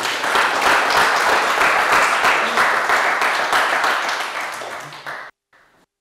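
Audience applauding, a dense patter of many hands clapping that eases slightly and then cuts off abruptly about five seconds in.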